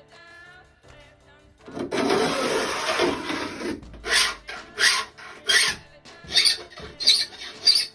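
Hand file rasping across the steel teeth of a crosscut saw during sharpening: one long stretch of filing, then six quick strokes in a steady rhythm.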